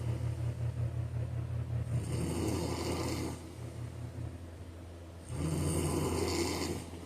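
A man snoring in slow rhythmic breaths, two snores about three seconds apart, over a steady low hum.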